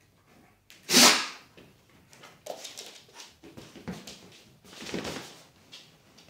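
Two dogs play-fighting: one loud, sharp bark about a second in, then a string of shorter, quieter grunts and scuffling noises.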